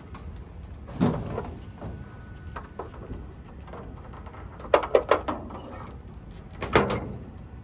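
Hood side panel of a 1933 Auburn being shut and its latches fastened by hand: a knock about a second in, a quick run of sharp latch clicks around five seconds in, and another knock near the end.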